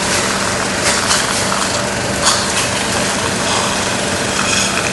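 Steady mechanical hum and hiss of dental surgery equipment running, with a couple of brief clicks about a second and two seconds in.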